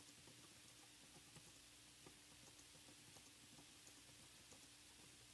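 Faint computer-keyboard keystrokes, several clicks a second, from steady touch-typing, over a faint steady hum and hiss.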